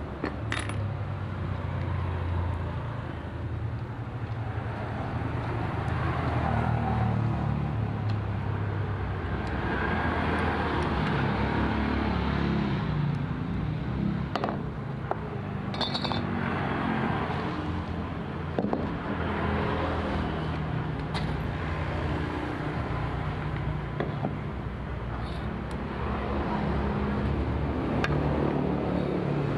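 An engine running steadily, with a few light metallic clinks.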